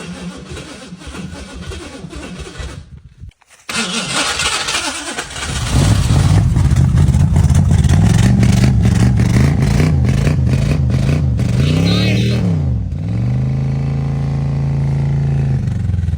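A long-dormant Ford Mustang II's 302 V8 being cranked over by the starter, stopping briefly, then cranking again and catching about five seconds in. It runs unevenly with its speed rising and falling, nearly stalls about twelve seconds in, then idles steadily for a few seconds.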